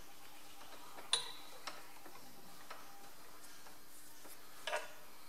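A few sharp metallic clicks and taps from a spanner working a stud loose with two nuts locked together on it, in a tractor rear axle housing. The loudest click comes about a second in and a short pair comes near the end, over a faint steady hum.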